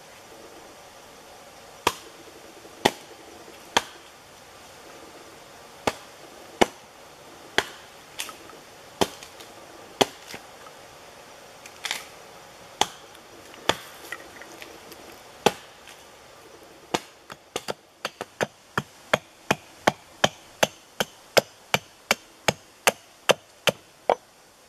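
Hatchet striking wood in sharp single chops, at first about one a second and unevenly spaced, then quickening after about 17 seconds to a steady run of about three chops a second.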